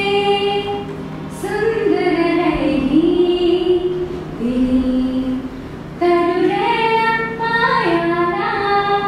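A woman singing into a microphone, a slow melody of long held notes that step up and down in pitch. A short pause comes before a new phrase about six seconds in.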